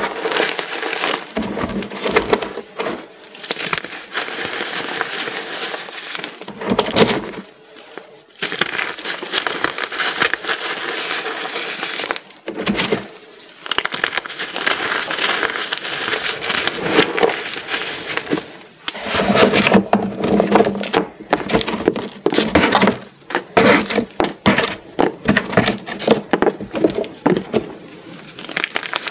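Many small pieces of reformed gym chalk being crushed, a dense run of crunching and crackling with short pauses between bouts.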